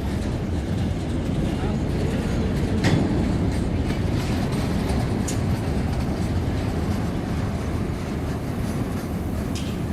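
Freight train rolling past: a steady low rumble of wheels on rails, with a few sharp clicks, the clearest about three and five seconds in.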